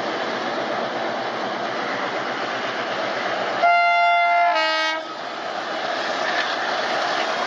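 ALCO diesel locomotives (a WDM3D leading a WDM3A) approaching with an express train, their engines chugging steadily over the noise of the running train. About three and a half seconds in, a locomotive air horn sounds one loud blast of just over a second, dropping to a lower note for its second half.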